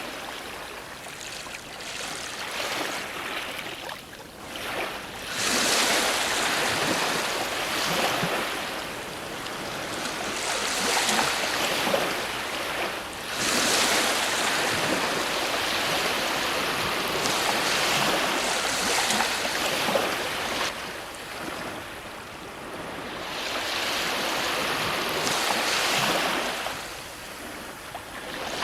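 Ocean waves breaking on a shore and washing back, the surf swelling to a louder rush every several seconds and then easing off.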